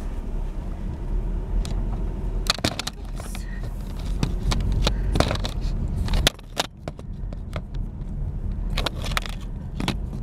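A camera being handled and repositioned inside a car: a run of sharp clicks, knocks and rubbing against clothing, with a brief drop in level a little past the middle. Under it runs the steady low hum of the car's idling engine.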